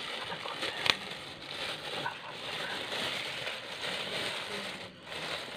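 Thin plastic bags crinkling and rustling as hands handle them, with one sharp click about a second in.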